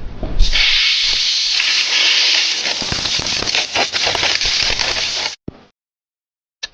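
Compressed air blowing dust out of a laptop's cooling fan and heatsink: a steady loud hiss with small ticks in it, starting about half a second in and cutting off suddenly after about five seconds.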